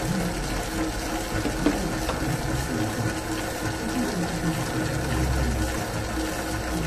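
Famag Grilletta spiral dough mixer running steadily at low speed, its spiral hook turning a small batch of wet dough in the steel bowl, with a steady motor hum. A single sharp click comes about a second and a half in.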